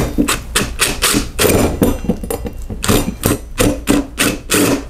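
Cordless DeWalt impact driver hammering a screw into a drywall anchor, run in quick short bursts of rapid impacts.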